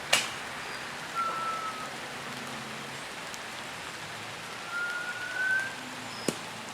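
A sharp snap near the start, then a whistle arrow's thin whistle heard twice: a short tone about a second in that drops slightly in pitch, and a longer one around five seconds in that rises. A steady hiss runs under it.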